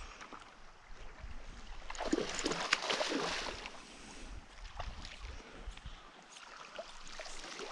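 Water splashing and sloshing as a hooked silver (coho) salmon thrashes at the surface close to the bank, with the loudest burst of splashing about two seconds in, lasting a second or two.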